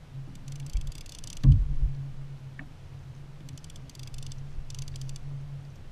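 Fishing reel clicking in quick rapid bursts as the angler winds in a fish, with one loud thump about a second and a half in.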